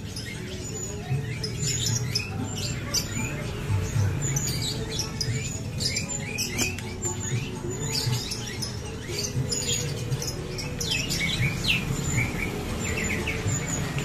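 Javan bush larks (branjangan) in an aviary giving many short, high chirps in quick scattered succession, over steady background music.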